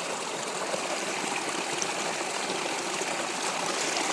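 Steady rushing of a flowing stream, an even hiss with no distinct splashes.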